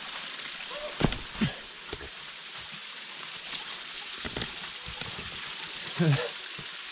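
Footsteps scuffing through dry fallen leaves and over stones, with a few sharper thumps about a second in, over the steady hiss of a small stream.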